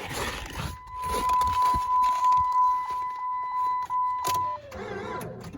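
A steady high electronic beep tone held for about four seconds, then cut off, with a sharp click just before it stops. It is a warning tone from either the battery charger or the truck.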